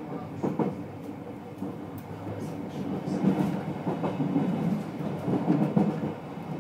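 Rhaetian Railway carriage rolling along, heard from inside: a steady rumble with irregular clacks of the wheels over the track, getting somewhat louder after the first few seconds.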